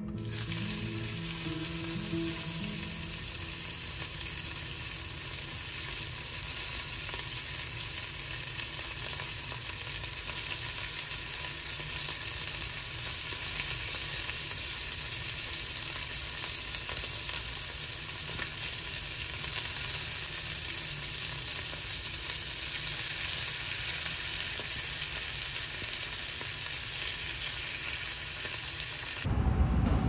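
Slices of raw beef sizzling in hot oil in a frying pan, a steady frying hiss that cuts off suddenly near the end.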